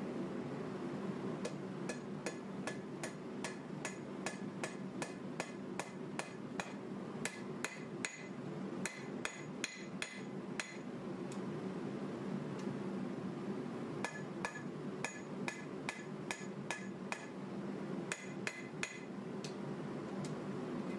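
Hand hammer striking a red-hot 1095 steel knife blank on an anvil during forging, about two blows a second, each with a bright metallic ring. The hammering pauses for a few seconds midway, then resumes. A steady low hum runs underneath.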